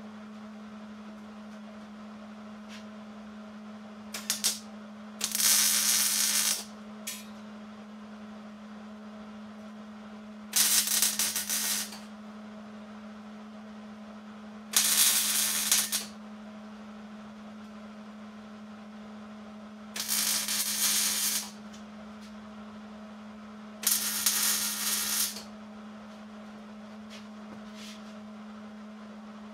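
Electric arc welding on a steel go-kart frame: the arc crackles in five short welds of about a second each, with a couple of brief blips before the first, over a steady low hum.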